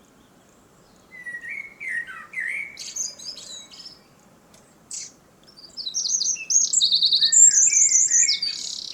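Several wild birds singing over the top of one another. A lower warbling phrase comes about a second in, then louder high, rapid trills and chirps fill the second half, over faint steady background noise.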